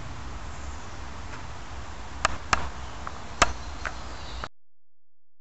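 A few sharp clicks over a low, steady hum, then the sound cuts off to dead silence about a second before the end.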